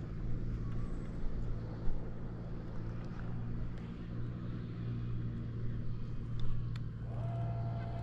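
Electric trolling motor on a small fishing boat humming steadily as it pushes the boat along; a higher whine joins near the end.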